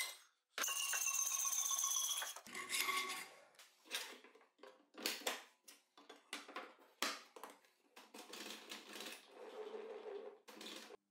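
Hacksaw cutting through a steel table saw riving knife: a long rasping stroke with a metallic ring, then a shorter one. After that come a string of light clicks and knocks as the riving knife and MDF insert are fitted into the saw.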